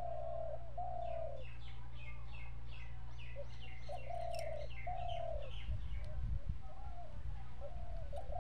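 A dove cooing in repeated short phrases of low, falling coos, with a smaller bird giving a quick run of chirps partway through. A steady low hum runs underneath, with rough low rumbling in the second half.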